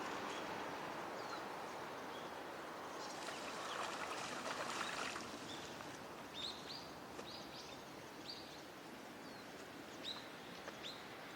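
Birds giving short, high chirps, several in quick succession from about six seconds on, over a steady outdoor hiss; a burst of noise about three seconds in lasts a couple of seconds.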